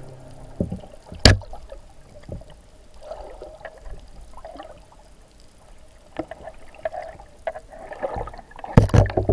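Water splashing and sloshing, with a sharp knock about a second in and a cluster of louder knocks and splashes near the end.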